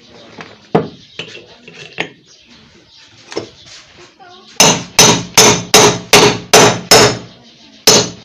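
A few light handling clicks, then about halfway through a hammer starts striking steadily, about three blows a second, driving a new ball bearing into its seat in a pedestal fan motor's plate; after a short pause the blows start again near the end.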